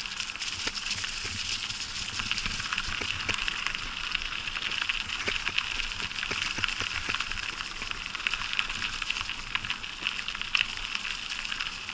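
Bicycle tyres rolling over a path thick with dry fallen leaves: a steady crackling rustle full of small snaps.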